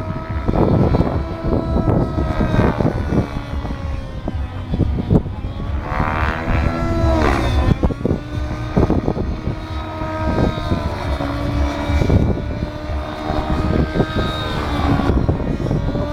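Radio-controlled model aircraft motor running, its pitch holding steady and then sliding down and up as it flies past, with strong wind buffeting the microphone.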